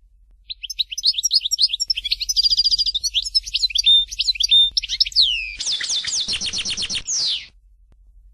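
European goldfinch of the Algerian 'chardonneret' type singing a fast, twittering song of quick high chirps and slurred whistles. Near the end it runs into a rapid trill and a falling slur, then stops suddenly.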